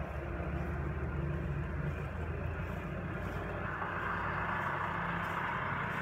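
New Holland T6.145 tractor's diesel engine running steadily with a low, even hum. A rushing hiss grows a little from about halfway in.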